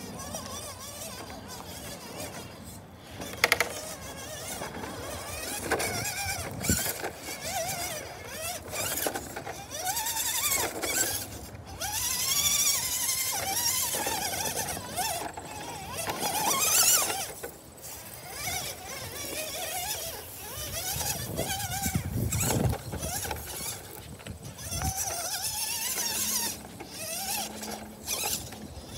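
Redcat Everest-10 RC rock crawler's electric motor and gears whining, the pitch rising and falling again and again as the throttle is worked while it climbs over rocks. Scattered knocks of tyres and chassis against stone, a sharp one a few seconds in.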